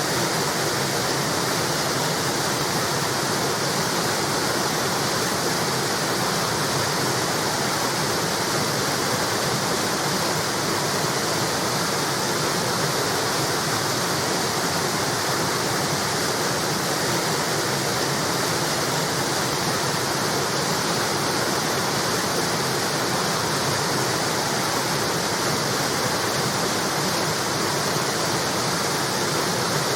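River water spilling steadily over a small weir, an even rushing splash with no breaks.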